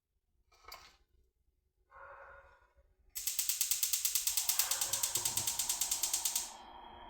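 Gas stove burner igniter clicking rapidly and evenly, about ten clicks a second for roughly three seconds, then stopping as a steady hiss takes over.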